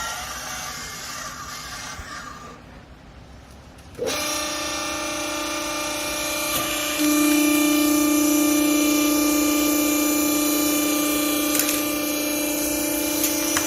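Wiper compress baler's electric motor and hydraulic pump starting up suddenly about four seconds in, then running with a steady hum and whine that grows louder about three seconds later and holds, as the pump comes under load.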